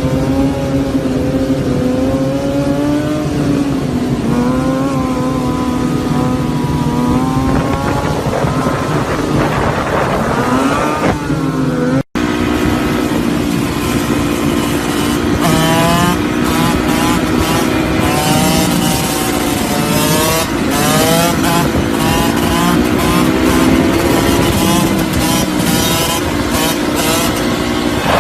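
Motorcycle engines running and revving, their pitch rising and falling, with a sudden break about twelve seconds in.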